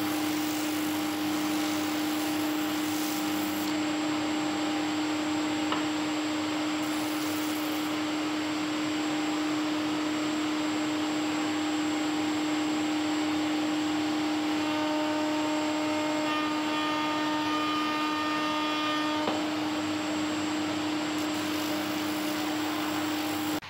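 Homemade plywood spindle sander running steadily with a constant motor hum. A higher whine joins for about five seconds past the middle, then drops away.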